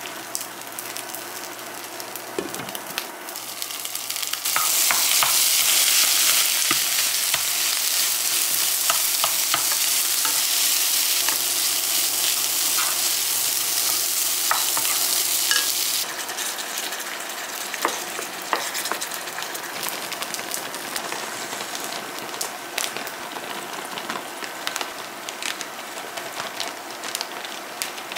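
Food sizzling in frying pans while a wooden spatula stirs and scrapes, with scattered light knocks of the spatula against the pan. The sizzle grows louder about four and a half seconds in and drops back about sixteen seconds in.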